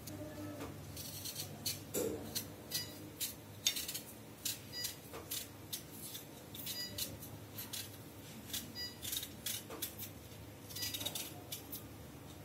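Y-shaped vegetable peeler scraping the skin off a raw potato in short repeated strokes, about two a second.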